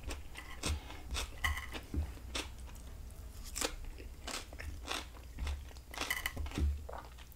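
Close-miked chewing of crisp vegetables, with irregular crunches about two a second.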